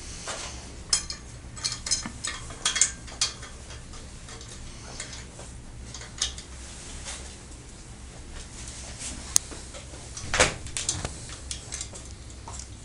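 Galvanized steel tension band clinking against a steel fence post and its bolt as it is opened, bent around the post and a bolt is pushed through its ends: a flurry of metal clinks in the first few seconds, a few more around six seconds in, one sharp tick a little after nine seconds, then another cluster of clinks.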